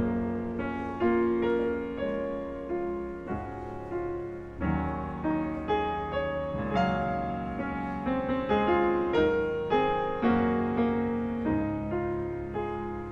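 Grand piano playing a slow melody: notes struck one after another and left to ring and fade over held bass notes.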